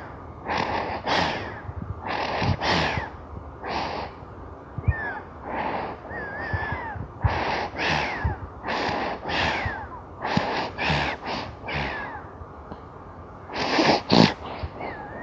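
A three-month-old baby snoring in sleep: quick, irregular noisy breaths about one to two a second, several carrying a thin whistling squeak. The loudest pair of breaths comes near the end.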